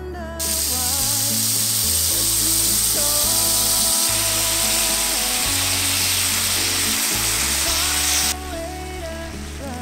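Marinated beef slices sizzling loudly in hot oil in a cast iron skillet, an even high hiss that starts about half a second in as the meat goes into the pan and cuts off abruptly about eight seconds in. Background music plays underneath.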